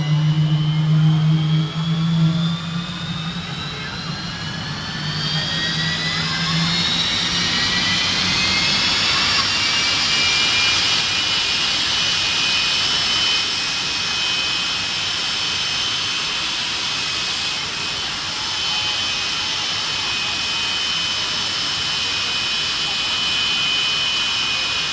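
Jet turbine of a drag car starting up: a high whine climbs steadily in pitch for about ten seconds, then holds at a steady pitch as the turbine settles. A low drone at the start fades away over the first few seconds.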